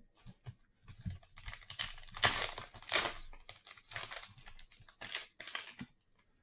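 A sealed pack of 2021 Rookies & Stars football cards being torn open, its wrapper crinkling and rustling in a run of bursts, loudest about two to three seconds in.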